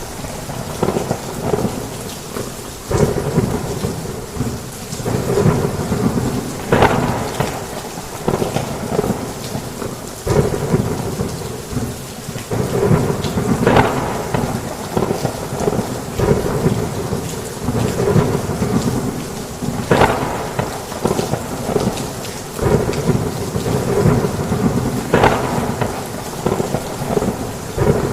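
Heavy rain falling steadily under a thunderstorm, with thunder rumbling almost without pause and sharper cracks of thunder about every five or six seconds.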